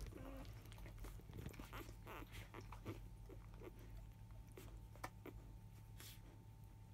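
Faint sounds of newborn Labrador Retriever puppies: a brief squeak near the start, then scattered soft clicks over a low steady hum.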